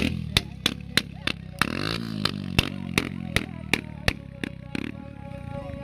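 Sharp handclaps keeping a steady beat, about three a second, with a motor engine revving briefly about two seconds in.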